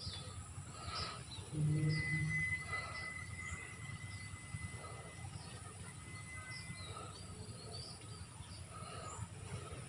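Rural outdoor ambience: birds chirping here and there over a steady high insect drone, with a thin steady whistle lasting several seconds. About a second and a half in, a brief low hum is the loudest sound.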